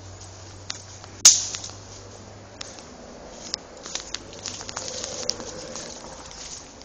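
Footsteps on a dry forest floor: scattered crackling of leaves and twigs, thicker in the second half. There is one sharp, loud snap about a second in.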